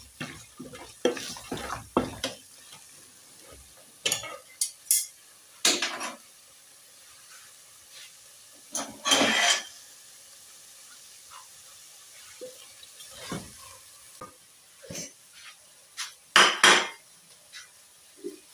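Kitchen utensils and cookware clattering: a spoon and pot knocking and scraping in a series of short, irregular clinks, with a couple of louder rattling bursts.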